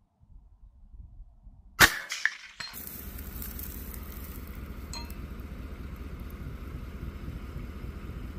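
A single rifle shot from a suppressed rifle, followed about half a second later by a fainter clang of the bullet striking a steel IPSC target at about 200 yards. From a second or so later a steady low hum runs on.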